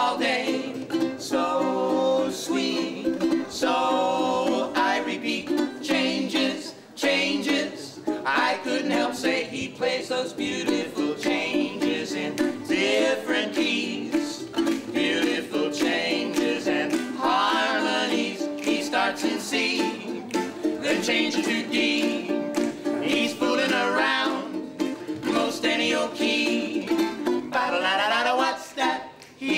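Live unplugged swing music: a strummed ukulele, a plucked upright double bass and a snare drum played with sticks, with voices singing.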